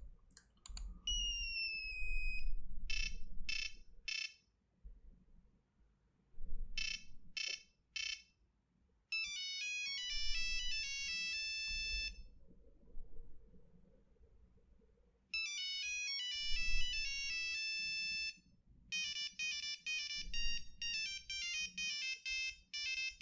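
Nokia 3310 monophonic ringtones playing one after another through the phone's small speaker: a falling run of tones, short groups of beeps, then simple single-note melodies, with short silences between ringtones.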